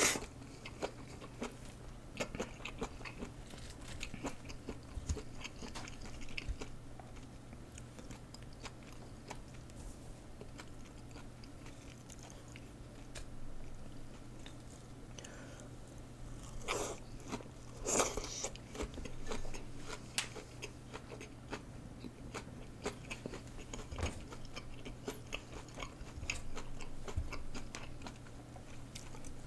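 Close-miked chewing and biting of food, with crunching and small wet mouth clicks throughout and two louder bursts about 17 and 18 seconds in, over a faint steady low hum.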